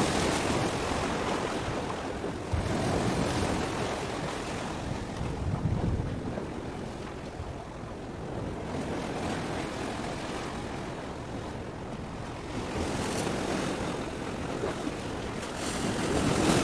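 Sea waves washing in, rising and falling in surges every few seconds, with wind buffeting the microphone.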